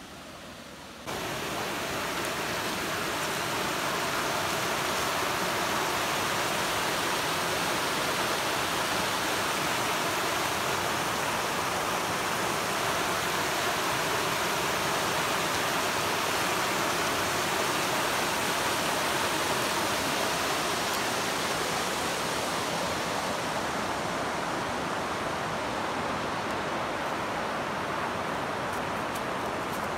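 Steady rush of water tumbling over river rapids. It starts suddenly about a second in.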